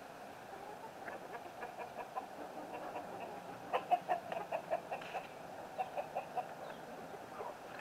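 Backyard chickens clucking: a run of short clucks, several a second, loudest about four seconds in.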